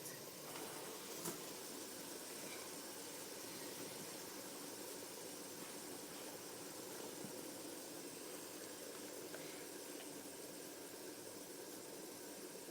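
Two fidget spinners spinning freely on their bearings, a faint steady whir and hiss, with one light click about a second in.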